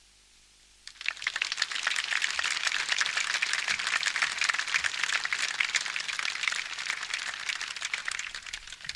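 Audience applauding: many hands clapping, starting suddenly about a second in and going on steadily.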